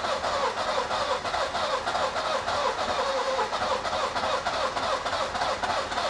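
Nissan Micra K11 engine cranked over steadily by its starter motor without catching, in an even rhythm. The fuel pump is disabled, and the cranking is clearing out an engine that is definitely flooded.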